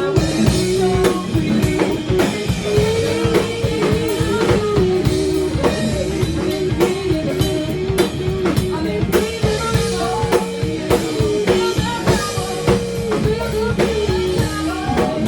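A band playing music: a drum kit keeping a steady beat under bass and guitar, with a melody line over it.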